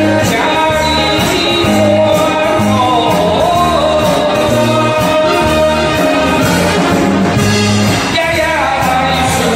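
A man singing into a handheld microphone over a karaoke backing track with a steady bass beat.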